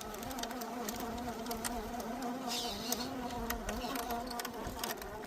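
Electric motor and gearbox of an RC rock-crawler truck whining steadily as it crawls, the pitch wavering slightly with throttle. Scattered sharp clicks sound over it.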